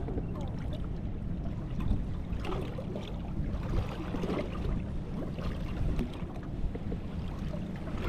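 Strong wind buffeting the microphone in a steady low rumble, with choppy waves splashing irregularly against a small fishing boat's hull.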